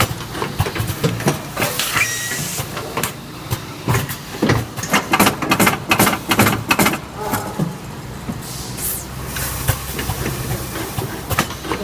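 Automatic weighing and vacuum packing machine running: a steady low hum with frequent mechanical clacks and knocks, and short bursts of air hiss.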